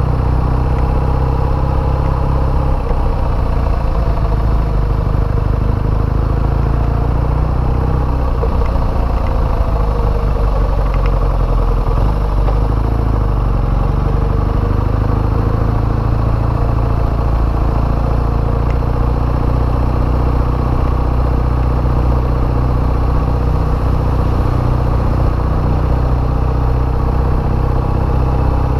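A BMW motorcycle's engine running steadily while being ridden, heard from the rider's position: a constant low engine drone at an even level.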